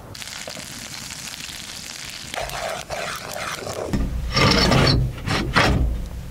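Wooden shutter board scraping as it is slid open across a small window opening in a plank wall: softer rubbing first, then two loud rasping scrapes near the end.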